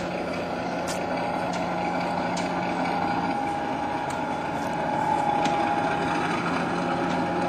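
Small 7¼-inch gauge miniature-railway locomotive running slowly: a steady mechanical drone, joined by a higher steady whine about three seconds in, with a few sharp clicks.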